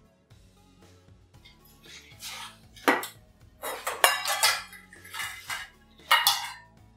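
Stainless steel mixing bowls clanking and ringing against each other and a steel worktable as they are picked up and set down, with three loud metallic strikes among smaller clatters.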